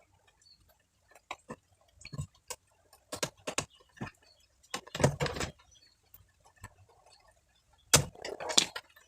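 Irregular clicks and knocks of small hard objects being handled, with a denser clatter about five seconds in and again near the end.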